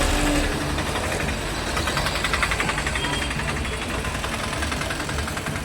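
A motor vehicle engine idling, with a fast, even pulse running through its sound from about two seconds in.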